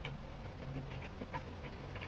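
Quiet chewing and mouth sounds of someone eating, with a few small, faint clicks.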